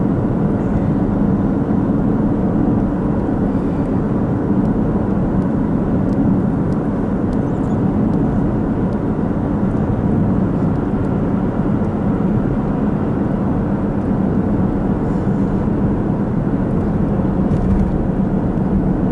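Steady road and engine noise of a car driving, heard from inside the cabin: a low, even rumble that holds at the same level throughout.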